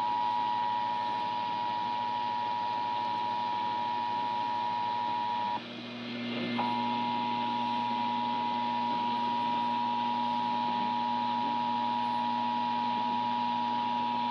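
Emergency Alert System two-tone attention signal (853 Hz and 960 Hz sounding together), a steady harsh dual tone announcing the required monthly test. It drops out for about a second after five and a half seconds, then resumes, with a faint low hum beneath it.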